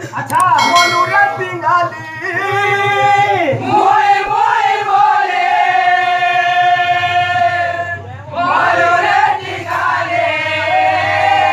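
Male voices singing Sambalpuri Rangin Kirtan, a devotional song, with one long held note in the middle, over a steady low hum.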